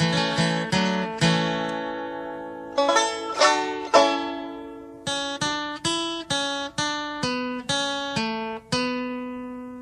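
Background music: an acoustic guitar picking single notes, each plucked sharply and left to ring and fade, with no singing.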